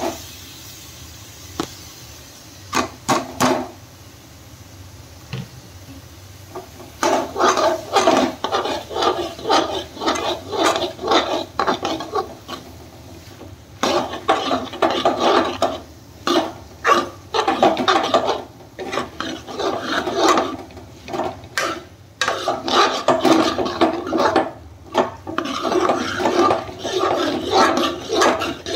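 A metal spoon stirring and scraping diced turnips in a steel frying pan, in quick repeated strokes. A few scattered strokes come first, then steady stirring from about seven seconds in.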